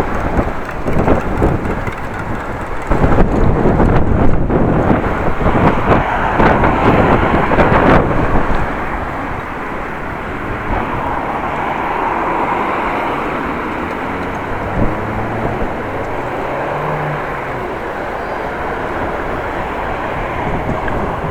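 Strong wind buffeting the microphone of a camera on a moving bicycle, in heavy gusts for about the first eight seconds, then settling into a steadier rush. A low engine hum from passing traffic comes through in the second half.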